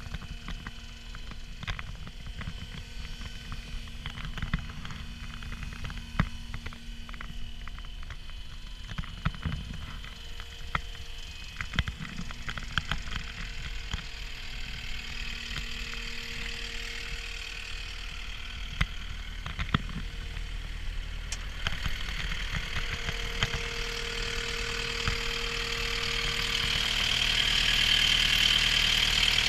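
CAT 236D skid steer loader's diesel engine running, with scattered clicks and knocks throughout. The engine grows louder over the last few seconds.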